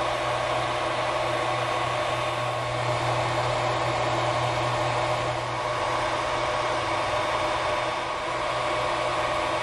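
Ender 3 3D printer running during a print, its cooling fans giving a steady whirring hum with a constant low drone and a few fixed higher tones.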